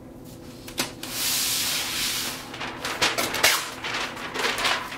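A large sheet of paper pulled off a roll and handled: a long sliding rustle about a second in, then irregular crinkling and crackling as the sheet is moved about.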